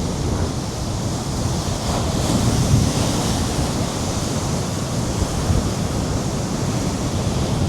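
Sea waves breaking and washing in at high tide, swelling louder about two seconds in, under strong wind buffeting the microphone.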